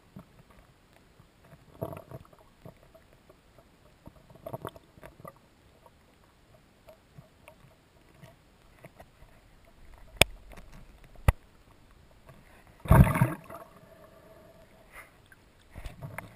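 Handling noise from an underwater camera housing: scattered knocks and clicks with small water rushes, and one louder bump with a short rush of water about 13 seconds in.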